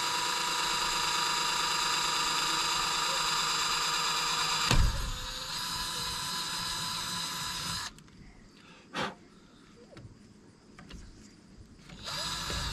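Cordless drill running steadily as it bores a hole through a PVC pipe, with a single loud thump about five seconds in. The drill stops at about eight seconds, a short knock follows, and it starts again briefly near the end.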